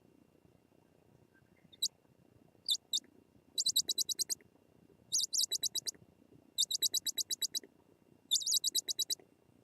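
Japanese scops owls at the nest box giving high-pitched calls. A few single notes are followed by four short bursts of rapid chittering, about ten notes a second.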